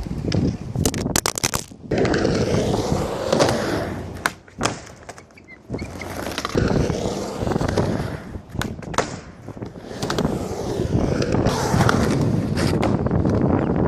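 Skateboard rolling on pavement, with sharp clacks and thuds of tricks being popped and landed: a cluster about a second in, one near the middle, and more toward the end.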